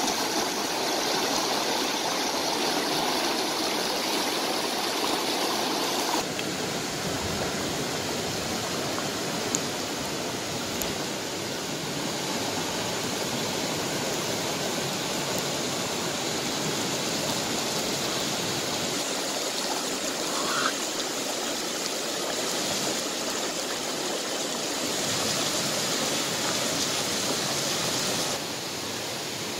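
Rushing water of a rocky stream pouring over boulders: a steady, even wash that drops slightly in level about six seconds in and again near the end.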